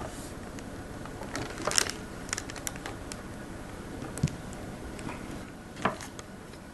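Craft knife scoring and stripping the outer PVC jacket of a coaxial cable: scattered short clicks and brief scrapes of the blade and cable being handled.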